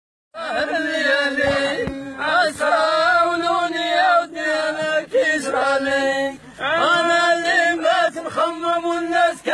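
A man singing drawn-out, chant-like notes in Arabic folk verse, his voice bending up and down on long-held syllables, with a brief break about two-thirds of the way in.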